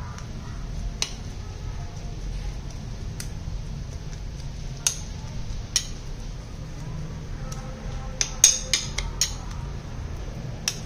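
Metal spoon clinking against a ceramic bowl while stirring chopped cha-om leaves into beaten egg: scattered sharp clicks, then a quick run of several near the end, over a steady low hum.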